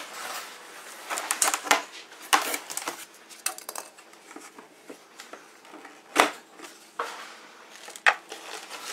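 Packaging rustling and irregular sharp clicks and knocks of plastic parts as a stand mixer's plastic bowl and dough hook are unpacked from the box, with the sharpest knock about six seconds in.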